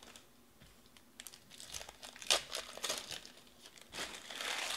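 Foil wrappers of Panini Prizm baseball card packs crinkling and tearing as they are opened by hand, in short scattered crackles after a quiet first second, with a longer crinkle near the end.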